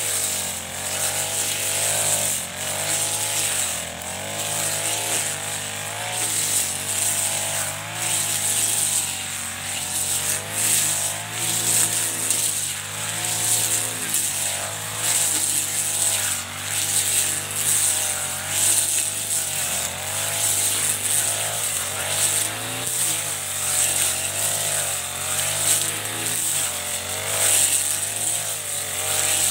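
Chinese-made Honda-type four-stroke brush cutter running at working speed while its cutting head mows through thick grass and weeds. The engine note dips and recovers every second or two as the load changes, over a steady high hiss from the cutting.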